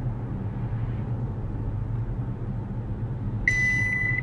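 Steady low road hum inside a moving car's cabin, then near the end a single high-pitched beep of under a second from a Mobileye collision-avoidance unit: its headway warning that the following distance to the car ahead has become unsafe.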